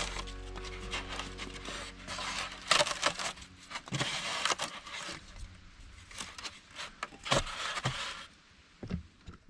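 Irregular scraping and rubbing sounds with a few sharp knocks, as of hands working materials at close range; background music fades out over the first couple of seconds.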